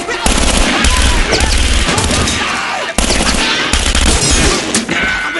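Several revolver shots fired one after another, spread over a few seconds.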